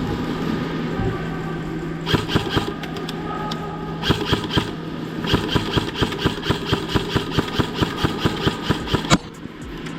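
Airsoft guns firing: scattered sharp shots, then a fast string of about four shots a second that stops suddenly near the end, over a steady low hum.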